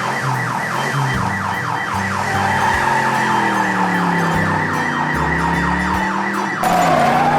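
Cartoon alarm siren sound effect: rapid rising whoops repeated several times a second, stopping near the end, where a louder rush of noise takes over.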